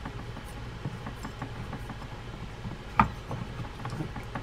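Light clicks and taps from the drag adjuster knob of a spinning reel as it is fitted and turned onto the spool, with one sharper clink about three seconds in.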